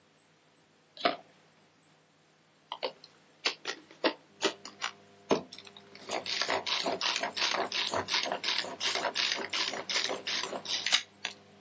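Tupperware Turbo Chef pull-cord chopper being worked by hand. There is one clack about a second in, then a few separate pulls, each a short ratcheting whir, and from about six seconds in quick pulls at about three or four a second.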